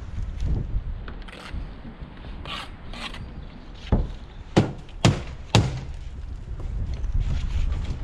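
Sharp knocks and taps of stone-laying work on a scaffold: four loud knocks about half a second apart around the middle, with lighter taps before and after, over a steady low rumble.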